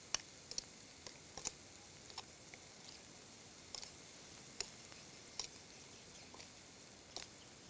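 A metal spoon clicking against a glass mixing bowl as raw beef is mixed into its marinade: light, irregular taps about one or two a second, over a faint steady hiss.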